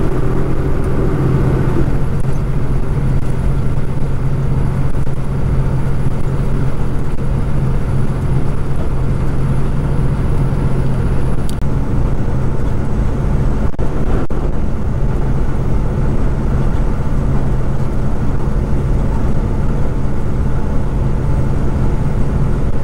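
Kenworth road-train truck running steadily at cruising speed: a constant low engine drone with road noise. A faint high-pitched whine cuts off with a click about halfway through.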